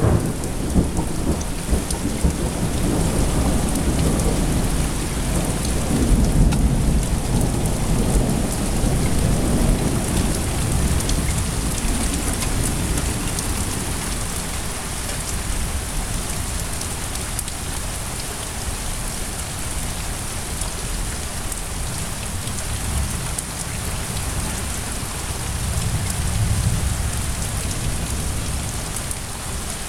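Thunderstorm: steady rain falling, with low rolling thunder rumbling through the first third and swelling again near the end.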